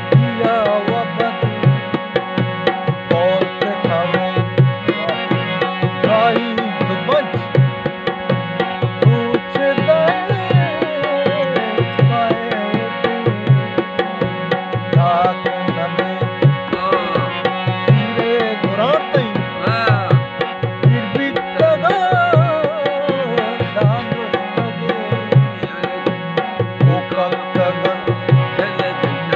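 Folk music: a harmonium sounding sustained reed chords and melody, with a drum beating a steady rhythm of about two strokes a second and a voice singing a gliding melody over it.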